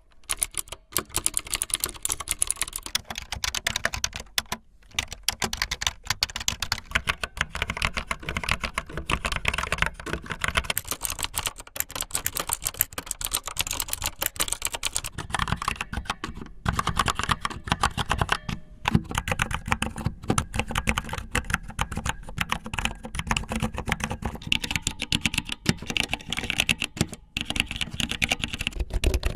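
Fast typing on a computer keyboard with long fingernails: a dense run of key clicks and nail taps, with a few brief pauses of about half a second.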